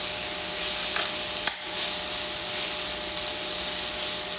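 Chicken pieces sizzling in a hot stainless steel skillet as metal tongs turn them, with two light clicks of the tongs against the pan about one and one and a half seconds in.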